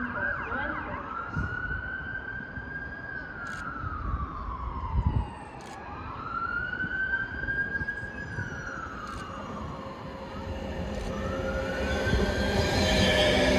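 Emergency vehicle siren switching from a fast yelp to a slow wail that rises and falls about every five seconds. Near the end a rumbling noise grows steadily louder, as a train approaches.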